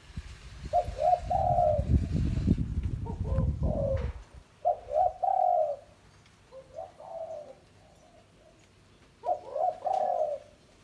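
Spotted dove cooing, five phrases of its repeated throaty coo spaced a couple of seconds apart. A low rumble runs under the first few coos and cuts off about four seconds in.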